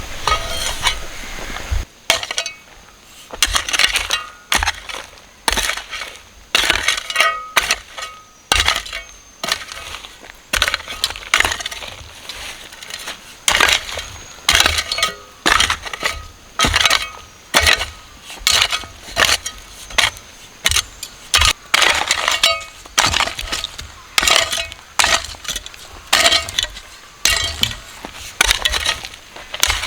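Sugar cane stalks being hacked with a blade: repeated sharp chops and cracks, about two a second, some with a brief ring.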